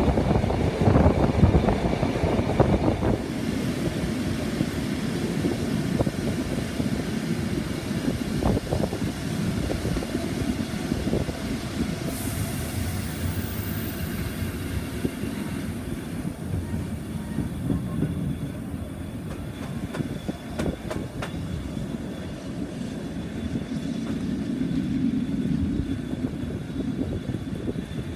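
Passenger train carriage running on the rails: a steady rumble of wheels on track with irregular clicks, louder in the first few seconds.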